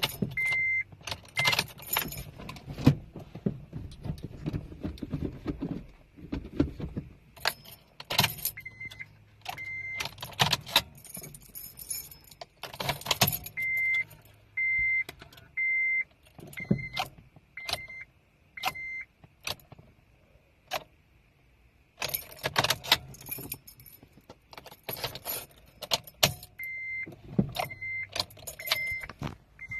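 Car keys jangling and clattering as the ignition key of a 2006 Acura RSX Type S is turned again and again. Runs of a short, high beep sound about once a second. No cranking or starter click is heard, the no-crank symptom that turned out to be a faulty starter.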